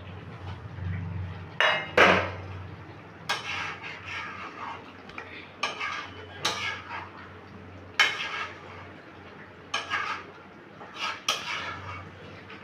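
Metal spatula scraping and clanking against a metal kadai while a thick mutton curry with potatoes is stirred and turned, about a dozen irregular knocks and scrapes from about a second and a half in.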